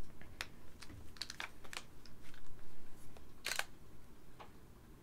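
A series of light, irregular clicks and taps from handling small equipment, with a quick cluster about a second in and a longer run of clicks about three and a half seconds in.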